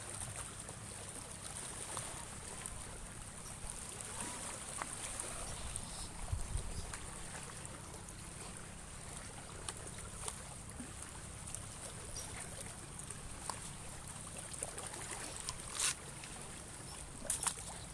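Shallow seawater lapping and trickling among shoreline rocks, with a low rumble of wind on the microphone and a few sharp clicks near the end.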